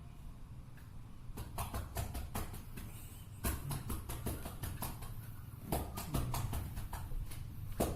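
Chest percussion in chest physiotherapy: cupped hands clapping rhythmically on a patient's chest or back to loosen sputum. The claps start just over a second in and run at about five a second with short breaks.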